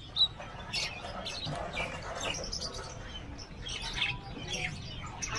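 Small birds chirping, many short high calls overlapping one another, over a low background hum.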